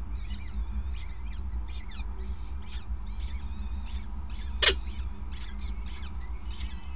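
Peregrine falcon chicks begging with a run of thin, high cheeps while they are fed, with one sharper, louder note about two-thirds of the way through. A steady low rumble runs underneath.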